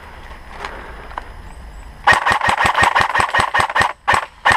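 Airsoft electric rifles firing on full auto: a fast, even rattle of about ten shots a second that starts about two seconds in, breaks off briefly near the end and resumes.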